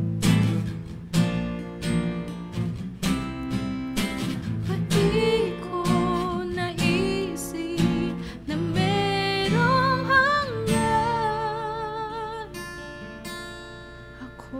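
Acoustic guitar strumming a slow song accompaniment. About five seconds in, a female voice joins with a wordless sung line with vibrato, its held notes climbing higher near the end while the strumming thins out.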